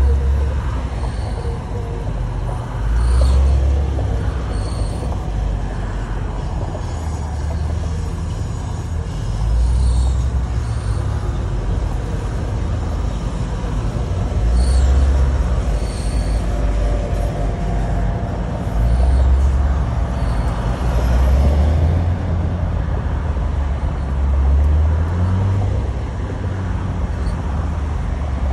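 Porsche Macan S driving, a low rumble that swells and eases every few seconds, with brief faint high-pitched screeches now and then. The owner does not know what causes the screech.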